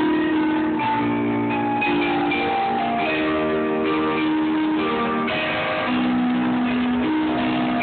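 Casio electronic keyboard being played: a quick, busy melody of held notes over chords, at a steady level.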